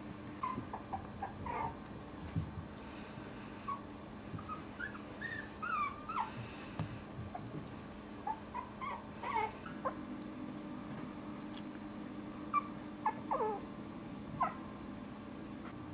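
Four-week-old Cairn terrier puppies whimpering: short, high-pitched whines, some sliding up or down in pitch, coming in scattered clusters, with the loudest few near the end.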